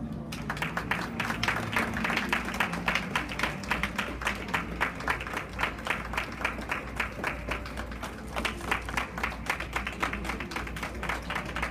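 Audience clapping along in a steady, fast rhythm, the claps sharp and evenly spaced.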